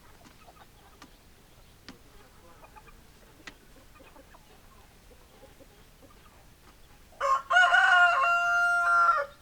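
A rooster crows once, loudly, near the end: a call of about two seconds that ends on a long held note. Before it, hens cluck faintly, with a few faint clicks.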